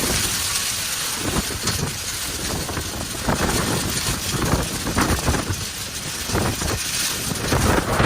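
Hailstorm: a dense, steady rush of falling hail and rain, with wind gusting against the microphone in irregular low surges.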